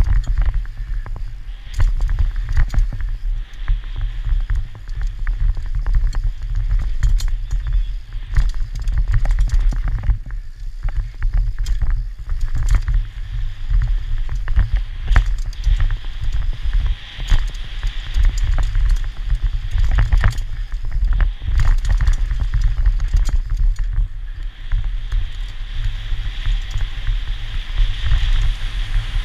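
Mountain bike descending a rough dirt trail at speed: a constant low rumble of wind on the microphone, with frequent rattles and knocks from the bike over bumps and a steady hiss of tyres on dirt that grows louder near the end.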